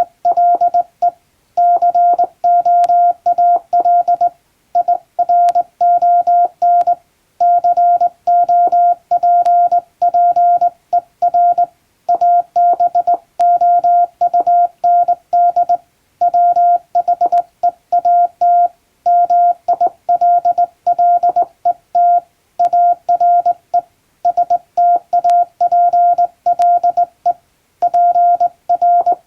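Morse code hand-sent on a JRC telegraph key, heard as a single-pitch beep keyed on and off: short dots and longer dashes with brief gaps between letters and longer ones between words. The text is a plain-language English telegram.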